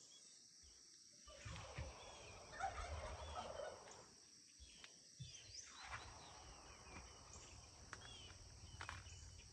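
Corn stalks and leaves rustling and brushing as someone pushes through dense corn rows, in two spells. Faint bird calls and a steady insect drone run underneath.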